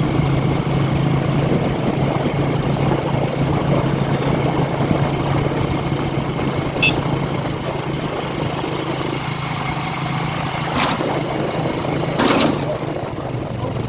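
Steady engine drone and road noise of a small vehicle heard from on board while it drives, with a few short knocks or rattles late on.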